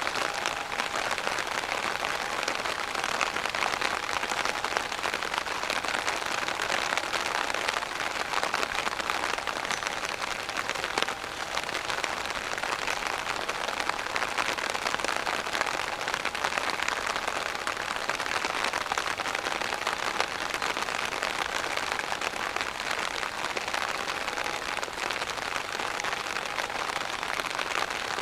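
Heavy rain falling on an umbrella close to the microphone: a dense, steady patter of drops.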